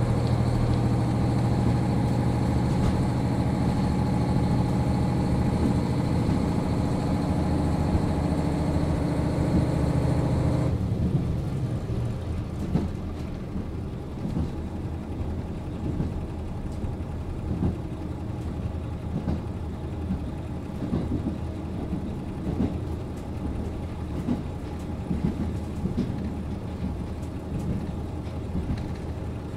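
JR Hokkaido KiHa 40 series diesel railcar idling while standing still. A loud steady engine hum cuts off abruptly about eleven seconds in, leaving a quieter, rougher idle.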